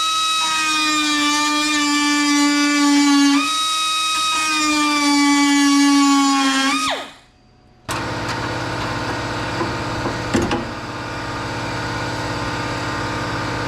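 High-speed power tool whining as it takes a little metal off the sheet-metal door skin. Its pitch sags under load, picks up once partway through, then the tool spins down and stops about seven seconds in. Moments later an air compressor kicks on and runs with a steady hum, with a few light clicks.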